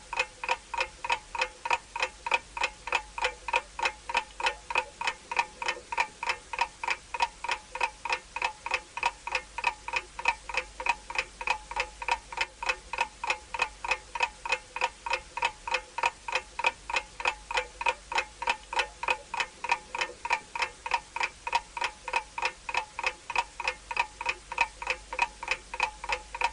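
Clock ticking sound effect: an even, pitched tick about three times a second, with no other sound under it, serving as a countdown timer for a timed challenge.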